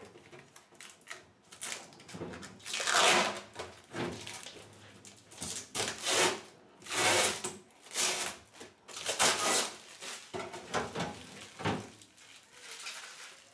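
A run of rubbing and rustling handling noises, about one every second or so, from parts of a new refrigerator being handled and fitted.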